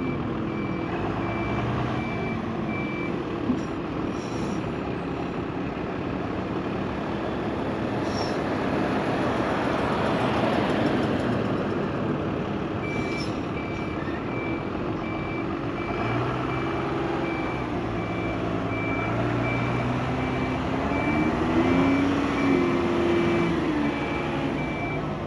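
Diesel engine of a terminal tractor (yard shunter) running as it manoeuvres, its note rising and falling in the second half, with a steady high reversing beeper sounding for the first few seconds and again from about halfway on.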